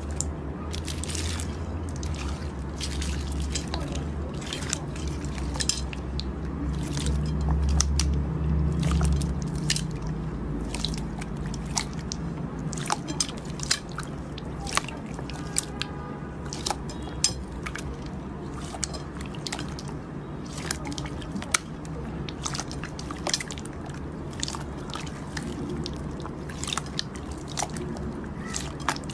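Slime being squeezed and worked by hand, making many irregular wet clicks and pops. A low hum runs underneath and stops about nine seconds in.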